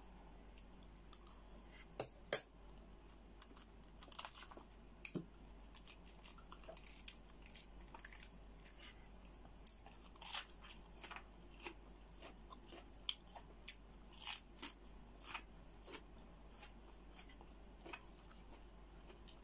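Close-up eating sounds: chewing and wet mouth noises from a person eating soft brown crab roe, with many small scattered clicks and crackles. Two sharper clicks come about two seconds in.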